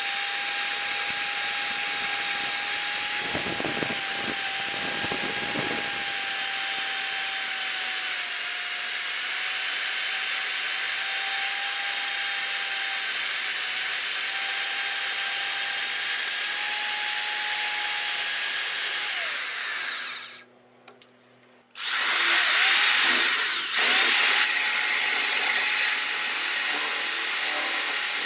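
A small high-speed power tool runs with a steady high whine, with some rougher noise a few seconds in. About 20 s in it is switched off and winds down to near silence, then starts again about a second and a half later, its pitch sweeping up before it settles back to a steady run.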